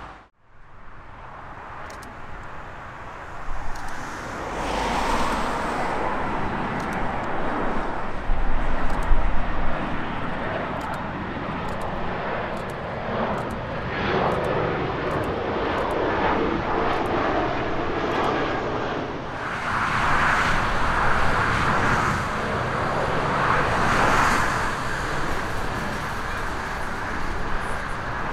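Airbus A319 jet airliner on final approach, its engines making a steady jet noise.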